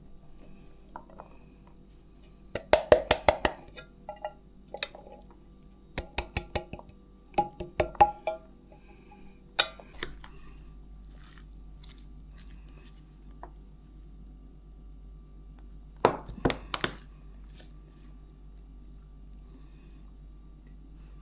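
Vegetables being chopped: bursts of several quick, sharp knocks with pauses between, over a faint steady hum.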